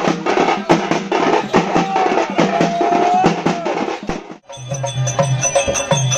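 Parai frame drums beaten with sticks in a fast, dense rhythm, with a single held tone sounding over them around the middle. After about four seconds the drumming cuts off suddenly into different music with a repeating bass beat and steady high tones.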